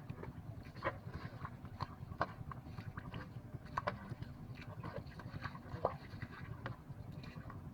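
Irregular wet slaps and squelches of hands and feet working in mud and shallow water, over a steady low rumble.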